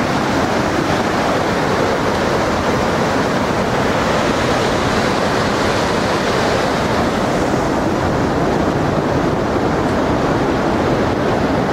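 Waterfall and glacial river rapids: white water pouring over rocks with a steady, unbroken rush.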